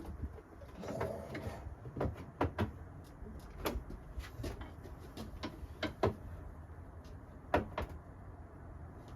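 Irregular knocks and clicks of hand tools prying at a moped's seat latch and plastic bodywork, with a short scrape about a second in.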